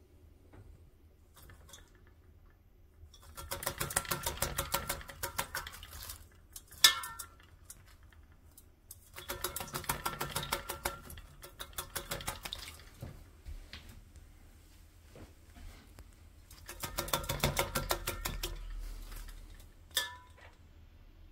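A kakariki parakeet bathing in a stainless steel water bowl, splashing and flapping its wings in three bouts of rapid splashing with pauses between. There is a sharp knock about seven seconds in and another near the end.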